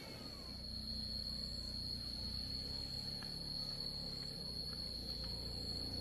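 Insects singing in one unbroken, steady high-pitched tone, with a low steady hum beneath it that grows a little louder near the end.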